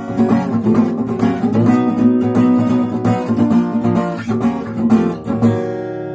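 Acoustic guitar strummed in a steady rhythm with sharp percussive strikes on the strings, the muted 'knock' (stuk) strumming technique, ending on a chord that is left to ring for the last half-second or so.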